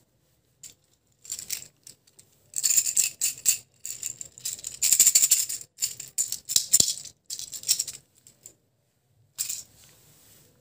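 Small hard-coated candies rattling inside the clear plastic wheel containers of a toy bicycle candy pack as it is handled, in a run of uneven bursts, with one short last rattle near the end.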